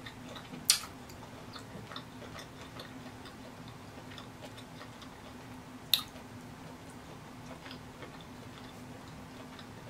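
Quiet eating sounds while picking at shrimp by hand: scattered faint clicks and smacks, with two sharper clicks, one about a second in and one about six seconds in, over a low steady hum.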